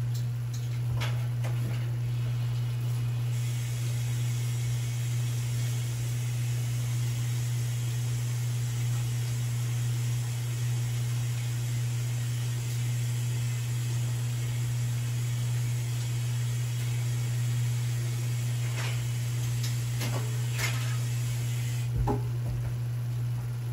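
Ground beef and chopped onion sizzling faintly as they brown in a frying pan, over a steady low hum. A few light clicks come near the end.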